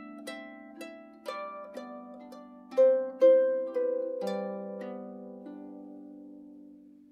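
Celtic harp background music: a slow phrase of plucked notes, with two louder notes about three seconds in, after which the last chord rings on and fades away.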